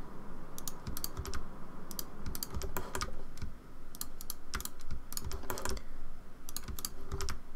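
Computer keyboard keys and mouse buttons clicking: irregular short clicks, a few a second, as Shift+R is pressed again and again between mouse clicks to select edges.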